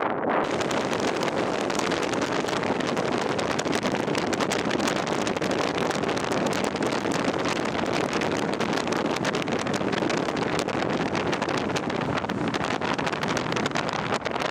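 Hail and rain hitting a car's roof and windshield in a dense, continuous patter of impacts.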